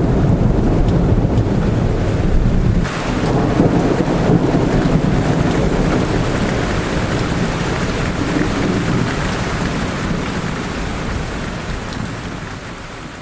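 Thunderstorm: heavy rain with a long, deep rumble of thunder that eases off about three seconds in, leaving steady rain that slowly fades out near the end.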